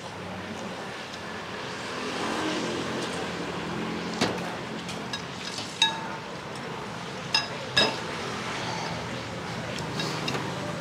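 Steady hum of street traffic with several sharp clinks of eating utensils against bowls, each ringing briefly.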